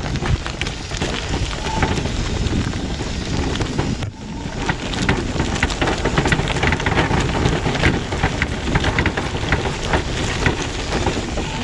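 Permobil F3 power wheelchair driving over loose gravel: its solid rubber tires crunch continuously over small stones, with many sharp clicks and ticks of rocks caught in the tread and flicked against the fenders.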